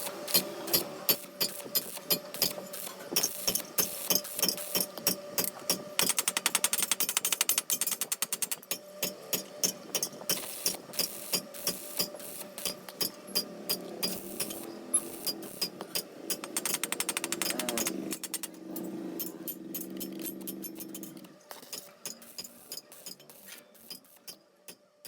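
Stick-welding arc crackling and popping in a fast, uneven rhythm over a steady hum, as weld is laid to fill a gap. It thins to scattered clicks near the end.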